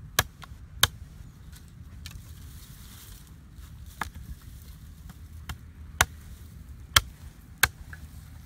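A knife blade chopping at a thin wooden stick, about six sharp, separate strikes at irregular intervals, the loudest two near the end.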